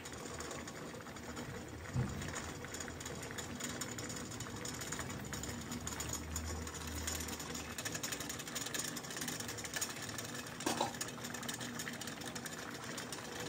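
Water boiling in a frying pan used as a double boiler, a steady fast bubbling rattle with the metal bowls and steel mug sitting in it. A light knock comes about two seconds in and a metal clink later on.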